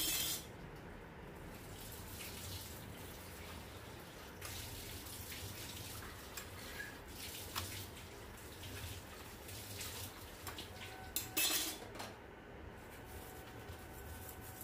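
Steel spatula and spoon scraping and clinking on a flat iron tawa as a stuffed paratha fries, over a steady low hiss of cooking. A louder scrape comes about eleven seconds in.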